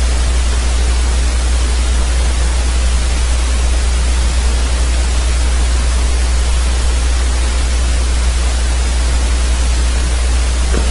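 Steady hiss with a constant low hum underneath, unchanging throughout: the background noise of a recording microphone left open between words.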